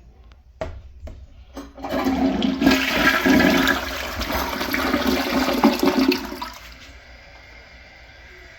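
Project Source Pro Flush toilet flushing: a few sharp clicks, then a loud rush of water for about five seconds that drops to a quieter steady hiss.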